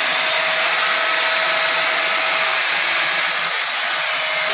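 Small electric angle grinder running steadily with an abrasive disc, grinding the bark off a lemon-tree branch: a constant grinding rasp over a steady motor whine.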